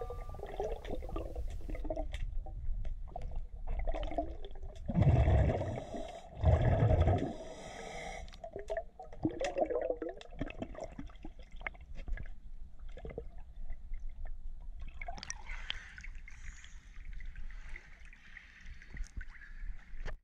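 Underwater recording of a scuba diver breathing through a regulator: bubbles gurgling and crackling, with two louder bubble surges about five and six and a half seconds in.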